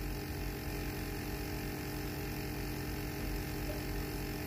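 Steady electrical hum and buzz, with a low drone and a constant mid-pitched tone.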